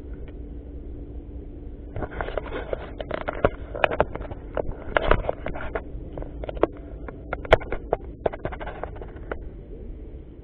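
Fishing reel clicking and whirring under load as a hooked carp is played, a dense irregular run of sharp clicks starting about two seconds in and stopping shortly before the end.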